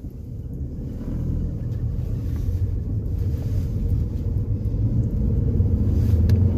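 Car driving, heard from inside the cabin: a low engine and road rumble that grows steadily louder as the car pulls away and picks up speed.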